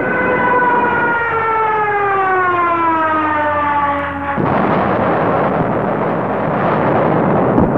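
Air attack: a siren-like whistle from a diving aircraft slides steadily down in pitch for about four and a half seconds. It breaks off suddenly into a heavy explosion with a long, dense rumble.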